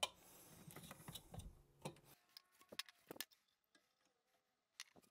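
Near silence with a few faint, scattered clicks and taps from handling plastic PVC pipe fittings.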